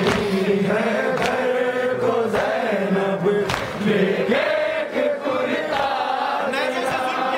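Men's voices chanting a nauha, a Shia Muharram lament, together in one melody. Sharp slaps about once a second from hands beating on chests (matam) keep time.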